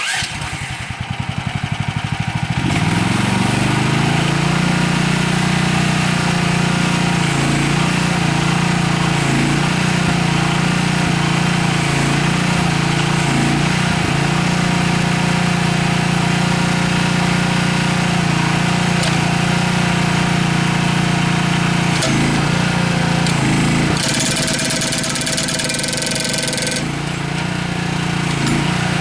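The GroundHog KH14G compact loader's engine starts and winds up over a couple of seconds to a steady, loud high-throttle run, powering its hydraulic jackhammer attachment. For about three seconds near the end a harsher, noisier sound joins in.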